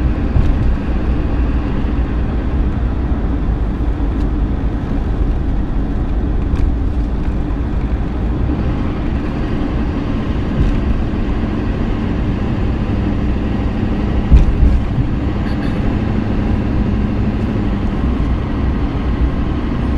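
Steady low road and engine rumble inside a car's cabin as it drives along at speed. A single short thump comes a little past the middle.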